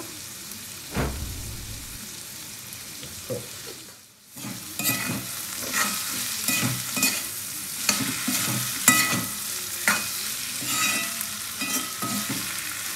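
Metal spoon stirring and scraping onions, tomatoes and dried fish frying in a cast-iron wok, over a steady sizzle. After a short lull about four seconds in, the spoon scrapes and clinks against the pan again and again.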